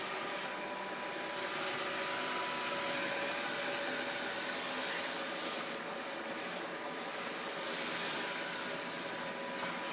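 Roborock S6 MaxV robot vacuum running as it drives across a hard floor: a steady motor whir with faint, even high tones over it.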